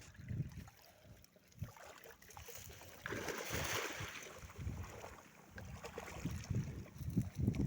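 Outdoor water sounds with uneven low wind rumble on the microphone, and a brief rushing splash about three seconds in.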